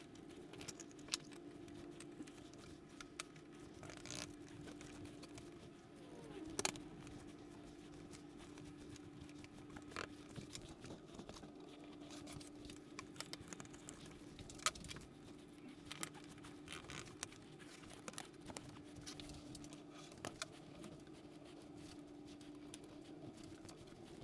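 Faint, scattered clicks and light knocks of wooden door-frame strips and acrylic panels being pushed together by hand in a glue-free dry fit, over a steady low hum.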